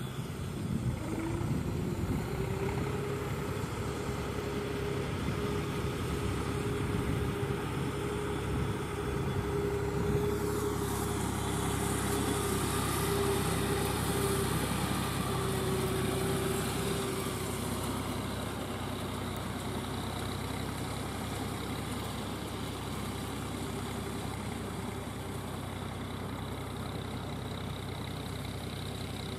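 Tractor diesel engine running steadily while pulling a straw roll baler, with a steady whine over the engine note. The sound eases a little past the halfway point.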